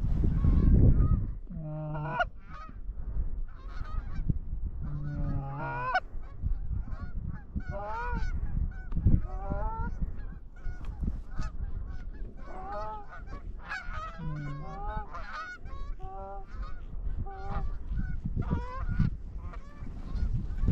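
Canada geese honking and clucking: many short, overlapping calls, near-continuous, with a low rumble in the first second.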